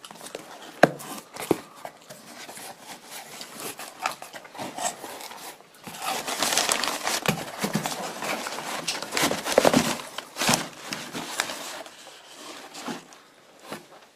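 A cardboard parcel being handled and opened, with a few sharp cardboard taps, then crumpled paper packing rustling and crinkling as hands rummage through it. The rustling is loudest about halfway through.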